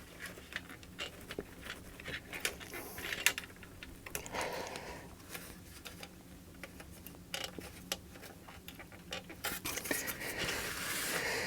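Scattered small clicks, taps and scrapes of hands working clipped plastic cable connectors loose from a hard drive and power supply inside a satellite receiver box, with a couple of soft breaths.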